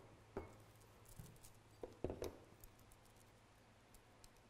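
Faint taps of small ceramic seasoning bowls being handled and set down on a cutting board, with light ticking of salt and pepper being sprinkled, over a low steady hum.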